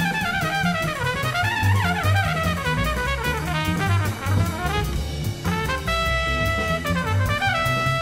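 Jazz background music: a brass-led band tune over a drum kit, with the horn line moving quickly at first and settling into long held notes near the end.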